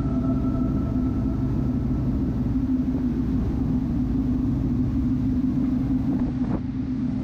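Cruise boat's engine running, a steady low rumble with a constant hum.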